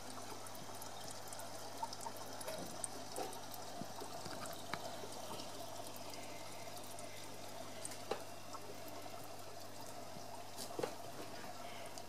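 Aquarium water trickling and splashing steadily over a low hum, with small drips or plops now and then; the loudest come about eight seconds in and near the end.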